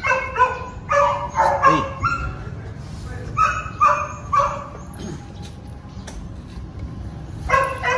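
German Shepherd giving short, high-pitched whining cries in quick runs: several in the first two seconds, more around the middle, and one near the end.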